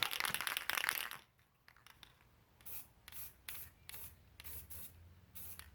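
Aerosol can of black spray paint, rattled briefly at first, then sprayed in a string of short hissing bursts about half a second apart over a freshly welded steel steering shaft.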